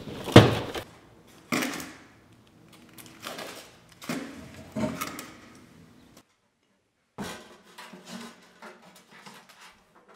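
Household objects and debris being handled and moved: a string of sharp knocks and clatters, loudest about half a second in. It cuts to silence for about a second past the middle, then softer rattling and scraping follows.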